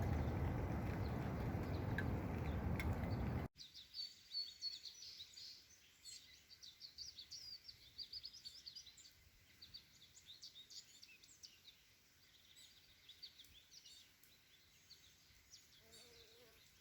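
A steady rushing noise that cuts off suddenly about three and a half seconds in. After it, birds chirp in many quick, high calls against a quiet background.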